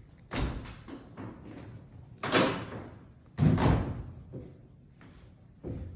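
Retractable telescopic bleachers clunking three times, loud, hollow metal knocks from the decking and row hardware that echo briefly in the hall, with a smaller knock near the end.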